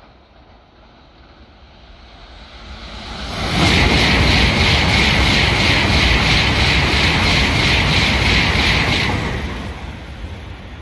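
Tokaido Shinkansen N700-series train passing through the station at high speed without stopping. A rushing rumble swells over about a second and a half, stays loud with a rhythmic clatter about three times a second as the cars go by, then fades away near the end.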